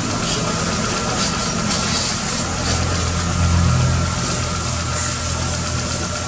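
Water spray hissing from a hand-held spray wand misting an engine bay. Underneath runs the steady hum of the machine feeding it, a little louder about halfway through.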